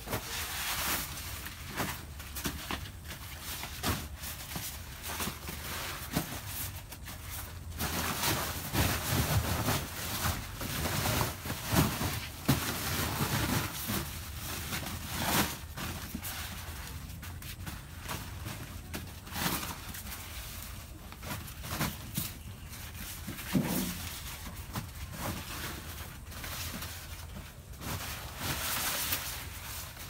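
Husk-covered ears of white corn being handled from a pile and dropped into a sack: husks rustling, with irregular clacks and knocks as the ears hit one another.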